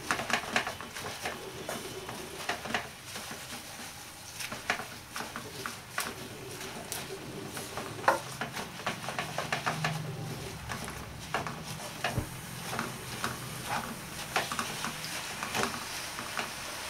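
Spatula stirring and turning fresh gongura (sorrel) leaves in a frying pan: irregular clicks and scrapes against the pan over a soft sizzle as the leaves cook down.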